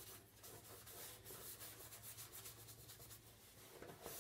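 Faint, irregular rubbing strokes against a galvanized metal planter tin as wet white paint is smeared and dabbed over it by hand.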